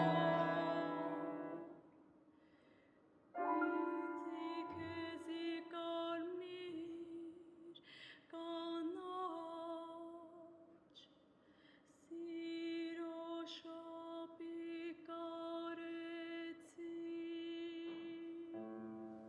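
A soprano sings slow, held phrases with vibrato, separated by short pauses and mostly without accompaniment. At the start a loud chord fades out into a brief silence, and the piano comes in again near the end.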